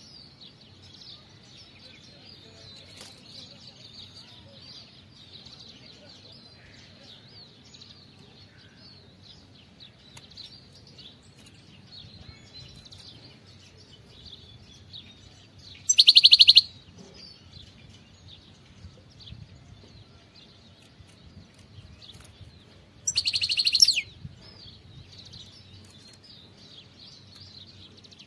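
European goldfinch giving two short, loud bursts of rapidly repeated call notes, about halfway through and again some seven seconds later, over a faint, continuous high twittering.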